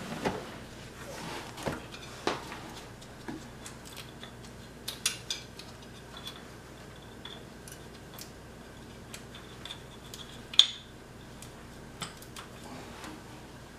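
Scattered small clicks, taps and knocks of a hand working blind up inside a plastic inner fender well, pushing a new crankshaft position sensor into place, with one sharper click about ten and a half seconds in.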